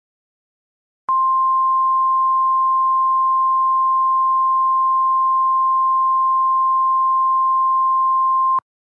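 Emergency Alert System attention tone: one steady, high-pitched alarm tone that starts about a second in, holds for roughly seven and a half seconds and cuts off sharply. It is the alert signal that announces an emergency broadcast message.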